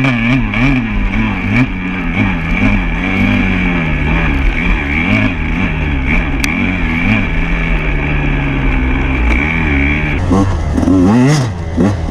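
Off-road motorcycle engine running at low speed on a trail, its note wavering up and down with the throttle. A steady high whine rides over it and stops about ten seconds in, and the engine briefly revs up and drops back near the end.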